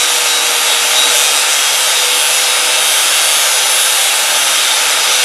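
Angle grinder cutting through a steel suspension coil spring, trimming off a coil to lower the car. Steady, loud grinding with the motor's whine held at one pitch throughout.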